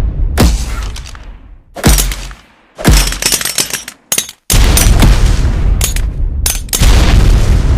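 Grenade explosion sound effects: a string of loud, sudden blasts, about five in all, each a sharp bang that trails off into a low rumble, the later ones following close enough to overlap.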